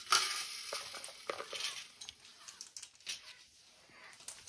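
Light irregular taps, clicks and rustling from a baby crawling on a wooden floor, busiest in the first two seconds and dying down after about three.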